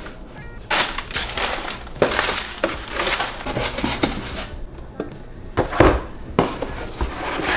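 Brown kraft packing paper crinkling and rustling as it is pulled from a cardboard shipping box, in several bursts, with a few sharp knocks of small cardboard boxes being handled and set down near the end.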